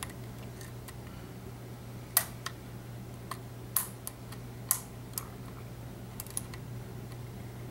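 Irregular sharp metallic clicks of a thin steel lock pick working the pins and warding inside an EVVA ALS euro cylinder under a tension wrench, during single-pin picking. The louder clicks come about two, four and five seconds in.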